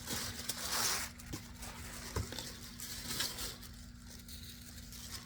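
Paper and card packaging rustling and crinkling as a box is unpacked by hand, in irregular bursts with a few light knocks.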